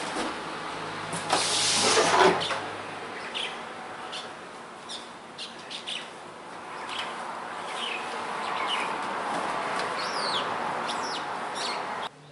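Small birds chirping in the background: short, high, falling chirps repeated many times over a steady hiss. There is a burst of rustling handling noise about a second or two in, and the sound cuts off abruptly near the end.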